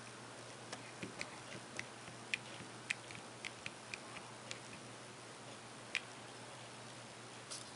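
Keys of a 16-key matrix keypad clicking as a fingertip presses them: about a dozen short, irregular clicks, most of them in the first half, with one louder click about six seconds in, over a faint steady hiss.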